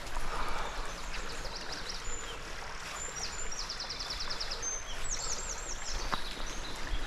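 Songbirds singing in high, quick trills and short slurred phrases over a steady background rush of river water, with one brief tick about six seconds in.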